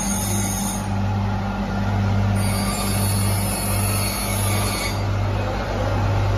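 Workshop machinery running steadily with a low, even hum, and a high whine that comes in during the first second and again from about two and a half seconds to five seconds in.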